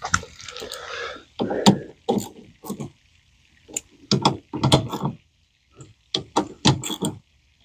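A string of irregular knocks and clunks, about a dozen, with short quiet gaps about three and six seconds in: hand work on the diesel pickup's battery terminals and the truck around them.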